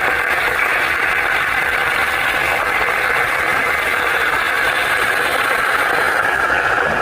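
Pressure cooker on the boil, its steam valve giving a loud, steady hiss with a light rattle.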